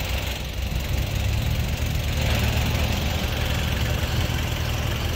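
4x4 off-road vehicle engine running steadily at low revs, a little louder from about a second in.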